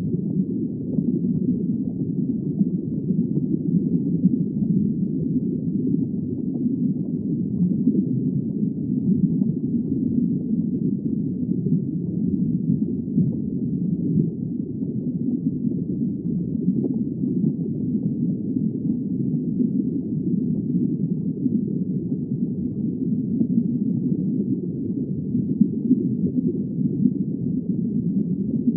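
Underwater ambience: a steady, muffled low rumble of water with no distinct calls or clicks.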